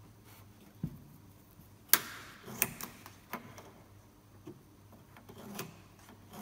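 A handful of light clicks and knocks from a wooden trim strip and pencil being handled against a wooden cabinet while the strip is marked, the sharpest about two seconds in.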